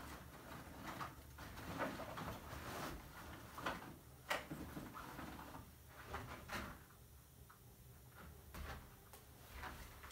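Light knocks, clicks and rustling of a person handling gear by a window, coming at irregular moments.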